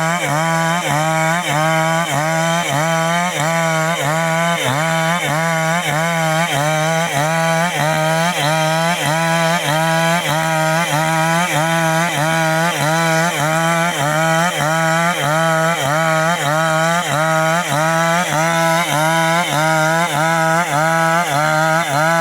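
Chainsaw running under load while cutting young teak, its engine pitch rising and falling evenly about twice a second as the saw works through the wood.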